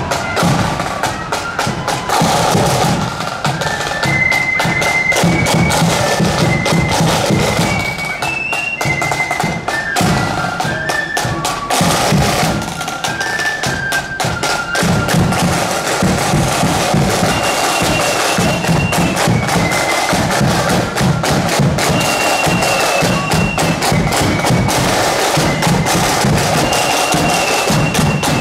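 Marching flute band playing a tune: flutes carry a stepped melody over rapid snare-drum strokes and a bass drum beat.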